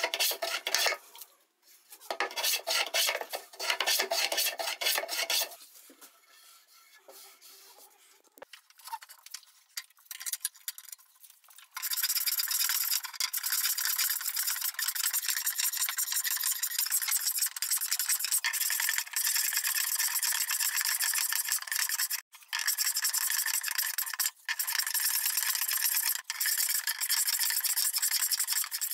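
Small wooden hand plane shaving Douglas fir, rounding the outside of a staved round pot: separate strokes in the first five seconds, a quieter stretch, then rapid, nearly continuous planing from about twelve seconds on, broken only twice.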